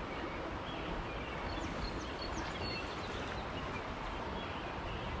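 Steady rush of a fast-running stream, high from recent flooding, with a few short bird chirps about one to three seconds in.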